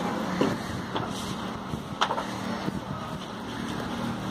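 Steady city background noise, mostly a low traffic rumble, with a single sharp click about two seconds in.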